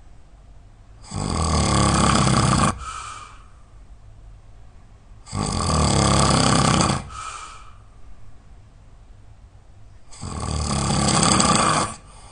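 A person snoring loudly, three snores about four seconds apart, each lasting a second and a half or more and followed by a short, softer breath.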